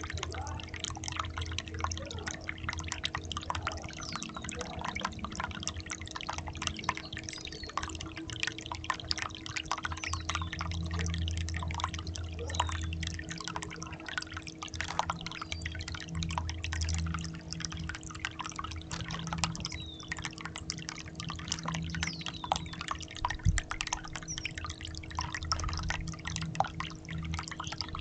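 Water dripping and splashing in a birdbath: a dense, irregular patter of small drops, with a steady low hum underneath.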